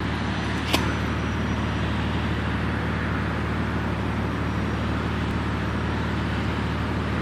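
BMW M54B30 3.0-litre inline-six running steadily at idle after a cold start, with the misfires the owner is recording. A single sharp click sounds about a second in.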